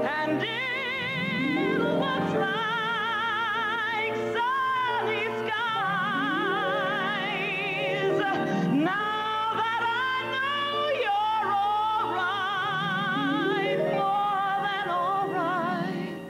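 Woman singing a slow ballad over piano accompaniment, with wide vibrato on long held notes and several sliding runs.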